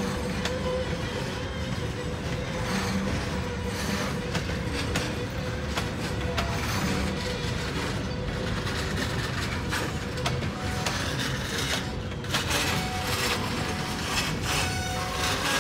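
Freight train of gondola cars rolling past, steel wheels clicking and rattling on the track, with a run of clanks about twelve seconds in.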